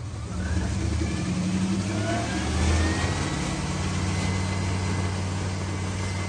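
Dodge V8 engine revved up about a third of a second in and held at a raised speed, with a faint whine climbing slowly in pitch. The revving is part of a combustion-leak block test on an engine with a slightly blown head gasket.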